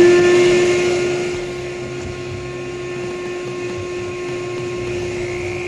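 Shop vac running with a steady, even whine while a drill with a half-inch bit bores into a plastic intake manifold, enlarging the hole for an IAT sensor. The sound is loudest at first and settles within about a second and a half.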